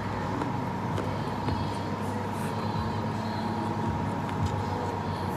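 Steady mechanical hum with a low rumble and a thin constant whine, with faint chewing and small clicks of a man eating chicken and rice by hand.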